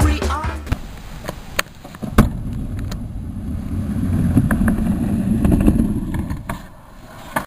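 Skateboard on concrete: a few sharp clacks of the board in the first two seconds, then the low rumble of the wheels rolling, growing louder and fading again.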